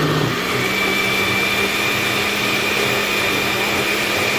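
Countertop blender with a glass jar running steadily, blending a liquid mix of cooked quinoa, milk and eggs; a steady high whine joins the motor noise about half a second in.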